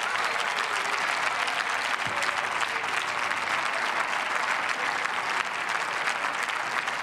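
Applause from many members of parliament clapping steadily.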